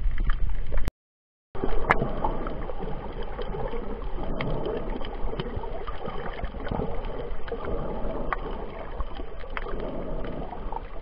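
Muffled underwater water noise picked up by a submerged camera, a steady low rumble and sloshing with scattered sharp clicks. It cuts out completely for about half a second near the start.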